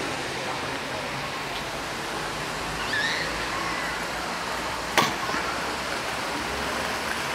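Steady rushing noise throughout, with a brief high gliding sound about three seconds in and a single sharp click about five seconds in.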